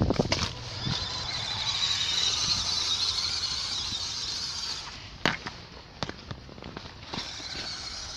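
Off-road RC car's motor and drivetrain whining at speed for about four seconds, with sharp knocks and crackle from the car bouncing over rough ground near the start and about five seconds in.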